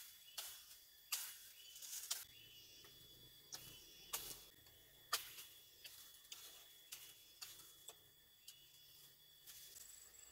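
Machete blade chopping side branches off a thin sapling pole: a string of sharp, irregular chops, one every half second to a second. A faint steady high insect tone runs underneath.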